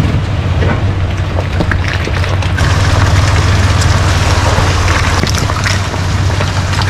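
Toyota Land Cruiser 80 series' 4.5-litre inline-six engine running steadily as the truck drives off-road, with a dense crackle of tyre and trail noise over it that grows louder a few seconds in.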